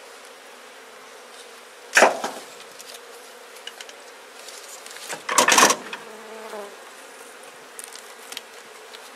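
Honeybee colony buzzing steadily and faintly. Two loud knocks break through it: a sharp one about two seconds in and a longer, louder clatter around five and a half seconds in.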